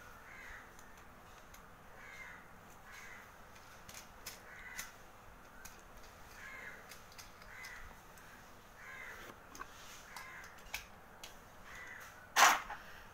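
Plastic toy pieces being handled, with small clicks, and one loud sharp snap near the end as a minifigure is pressed onto a toy skateboard. Harsh bird-like calls repeat at irregular intervals in the background.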